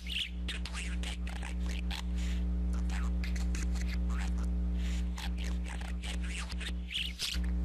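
Budgerigar chattering in a fast run of short high chirps and clicks, over a loud steady low hum.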